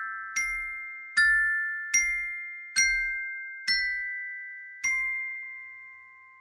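Glockenspiel with metal bars struck by a ball-headed mallet, playing the last notes of a simple melody: six ringing notes, slowing slightly. The final, lower note is left to ring and fade away.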